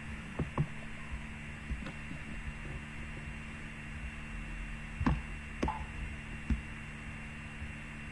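Steady low hum and hiss of room and microphone noise, with a few scattered short clicks and knocks; the loudest comes about five seconds in.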